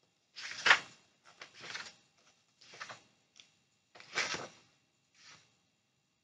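Paper rustling as the pages of a large book are handled and turned: a series of short dry swishes, the loudest about a second in and again about four seconds in.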